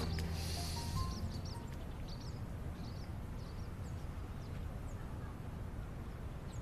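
Background music fading out, then faint small-bird chirps, short and high, over a quiet background.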